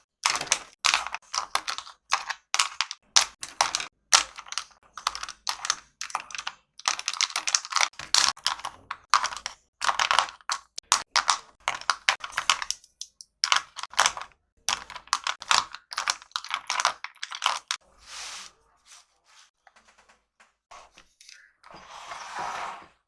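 Plastic colored markers clicking and clattering against one another as they are handled and sorted, in quick dense runs of clicks. The handling thins to a few faint clicks near the end, with a short rustle just before it stops.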